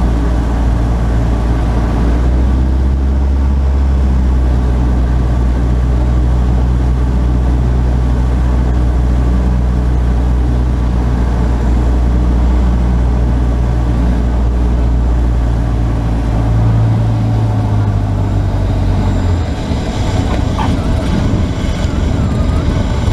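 Cessna 150's piston engine and propeller heard from inside the cockpit, a steady drone at reduced power on final approach. Near the end the engine sound drops and changes as the plane touches down and rolls out on the runway.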